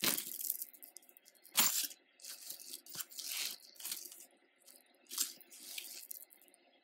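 A metal chain bracelet hung with beads and charms being handled and untangled, its links and dangles clinking and rustling in short bursts, with the sharpest clink about a second and a half in.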